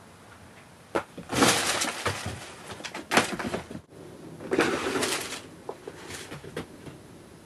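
Stiff clear vinyl bag crinkling and rattling as a cat pounces on it and knocks it about. A sharp knock about a second in, then three loud bursts of crackling, with a few lighter taps near the end.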